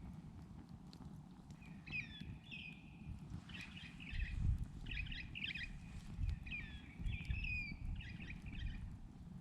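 Australian bush birds calling in short, repeated phrases of rising and falling whistled notes, several times over. Under them, a campfire crackles with scattered sharp pops over a low, steady rumble.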